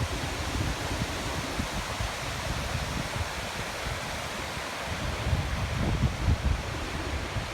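Nachi Falls, a tall single-drop waterfall, rushing in a steady, even roar of falling water. Uneven low rumbles of wind buffet the microphone, strongest about two-thirds of the way in.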